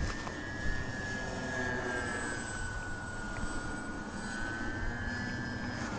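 Twin electric motors and propellers of a TwinStar radio-controlled model plane whining steadily as it flies overhead, the pitch sagging a little midway. Right at the end the whine starts to drop in pitch as the motors cut out, an in-flight motor failure.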